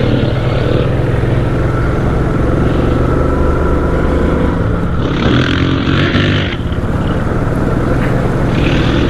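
ATV engine running steadily as the machine rides along a muddy trail, with two short bursts of hiss about five seconds in and near the end.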